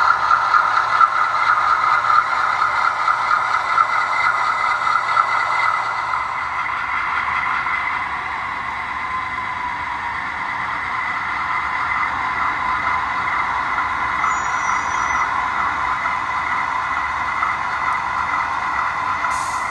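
Sound decoder in an HO scale Conrail GE B36-7 model locomotive, playing diesel engine sound through its small speaker as the model runs and switches tank cars. The engine sound holds steady throughout, dipping slightly in loudness about six to ten seconds in.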